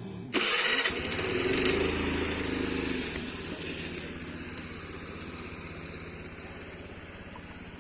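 A motor vehicle's engine running close by. It comes in suddenly, is loudest in the first couple of seconds, then slowly fades.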